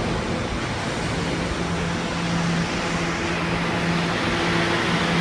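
Inside an R211A subway car: a steady rumble and hum from the train and its ventilation, with a few constant humming tones, getting slightly louder toward the end.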